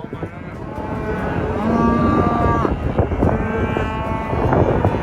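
Cattle mooing in a group of cows and calves: two long, drawn-out moos, the first lasting about two seconds, the second starting a little past halfway.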